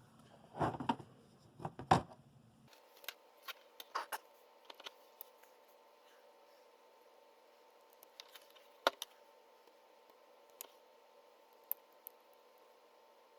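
Handling of small 3D-printed plastic parts and a fan: two louder knocks in the first two seconds, then scattered small sharp clicks and taps, the loudest about nine seconds in.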